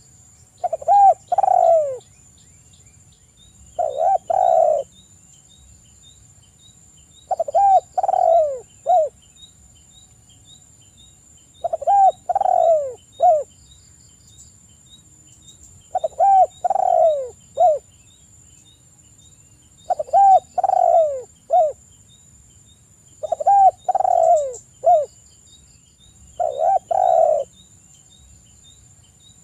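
Spotted dove (tekukur) cooing: a short phrase of several deep coos, given eight times at roughly four-second intervals.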